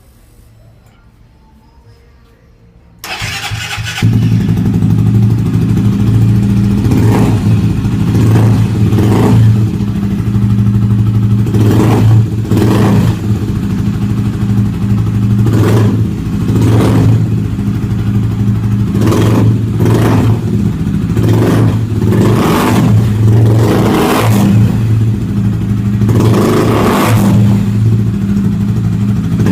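Honda XRE 300 single-cylinder motorcycle engine started about three seconds in, then idling through an aftermarket two-way exhaust set to its loud, sporty mode, blipped on the throttle again and again in short revs.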